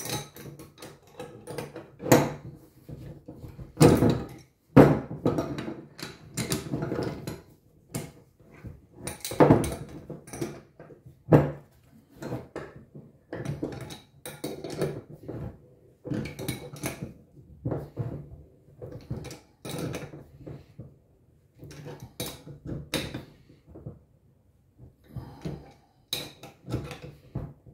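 Threaded stainless steel pipe fittings and adjustable spanners clinking, knocking and scraping as they are handled and tightened on a wooden bench, in irregular strokes with a few louder knocks.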